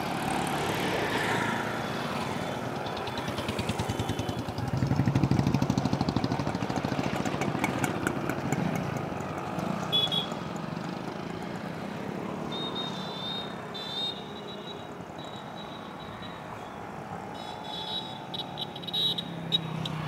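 Street traffic with vehicle engines running; one engine grows loud and pulsing about five seconds in, then fades. Short, high-pitched beeping tones come several times in the second half.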